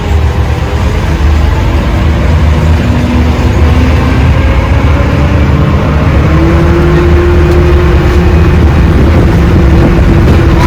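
Tour train's engine running with a loud low rumble, its pitch rising midway as it picks up speed.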